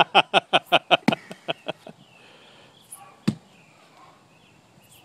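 Laughter in quick bursts of 'ha' that fade out about two seconds in, then one heavy thud of an 8-pound sledgehammer striking a tree stump a little past the middle.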